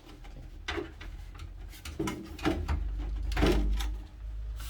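Computer power supply being worked out of its case: a few knocks and scrapes of the unit against the case, the longest about three and a half seconds in.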